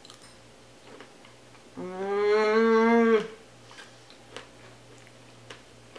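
A woman's drawn-out, closed-mouth 'mmm' of enjoyment, rising slightly in pitch and lasting about a second and a half, while she chews a mouthful of oatmeal. Faint mouth clicks from chewing come before and after it.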